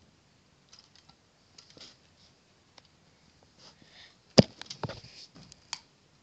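Scattered light clicks and rattles of plastic Lego Technic parts being handled. The clicks are sparse at first, then come in a quick cluster of sharper, louder clicks a little over four seconds in.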